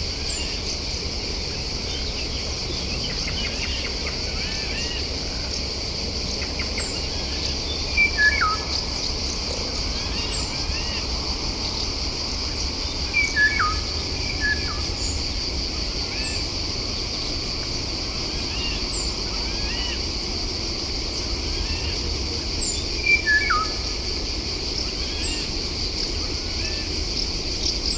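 Wild birds calling over a steady, high insect buzz: thin, short falling notes every few seconds, and three louder clusters of falling calls, about eight, thirteen and twenty-three seconds in.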